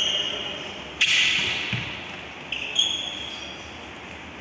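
Basketball shoes squeaking on the court floor: a few sharp, high squeaks, echoing in the sports hall.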